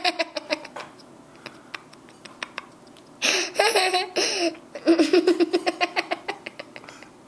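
Young girl laughing hard: a laugh trailing off in the first second, a lull, then a high-pitched laugh about three seconds in followed by a run of quick ha-ha pulses that fade near the end.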